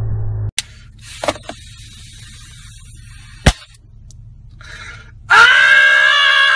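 A young man screaming loudly for about a second and a half near the end, the pitch jumping up at the start. Before it come the last moments of water splashing, cut off abruptly, and a few sharp clicks.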